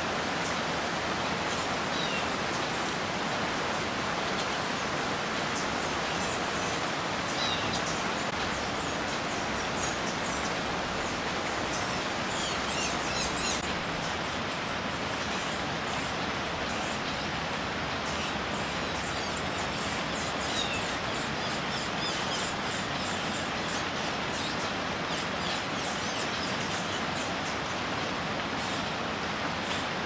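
Small birds giving short, high chirps here and there over a steady background hiss. The chirps come thickest about halfway through.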